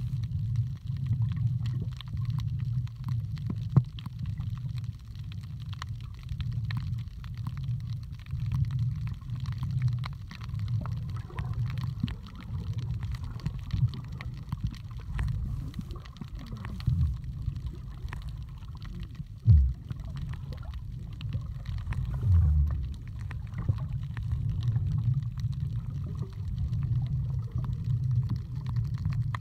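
Underwater sound picked up by a camera in a waterproof housing while snorkeling: a steady, muffled low rumble of moving water with faint scattered clicks. A few dull thumps come through, the loudest about two-thirds of the way in.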